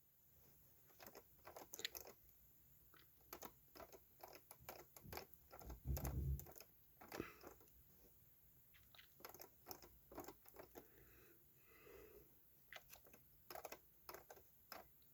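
Near silence with faint, scattered small clicks and taps, and one soft low thump about six seconds in.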